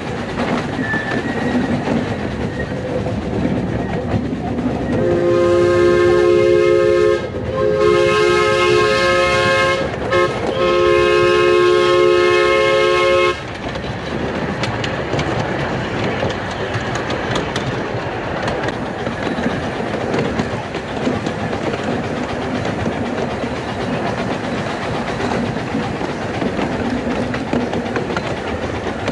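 Miniature 15-inch gauge live-steam train rolling along its track with a steady clatter of wheels on rails. About five seconds in, the locomotive's steam whistle blows three long blasts in quick succession.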